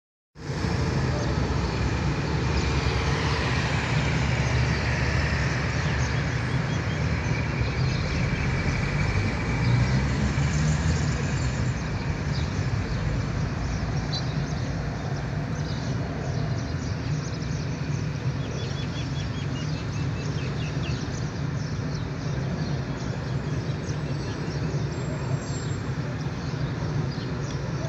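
Street traffic noise: a steady rumble of cars on a road nearby, with faint small sounds over it.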